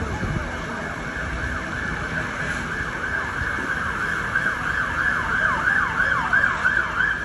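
Emergency vehicle siren in a fast yelp: rapid falling sweeps, about three a second, growing louder toward the end over a steady low rumble.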